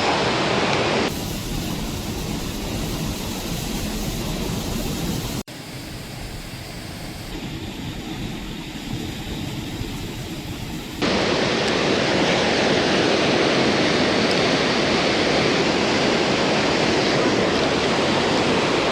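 Steady rush of falling and tumbling water from a waterfall. It drops sharply in level about a second in, dips again around five seconds, then jumps back to full loudness about eleven seconds in.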